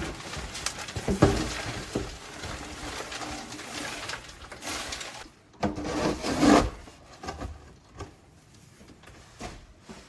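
Low cooing bird calls, dove-like, heard twice, with a few sharp wooden knocks and rubbing sounds.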